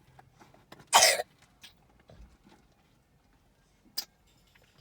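A young girl coughs once, loud and short, about a second in. The cough is the kind put down to the milkshake's dairy. A short sharp click follows near the end.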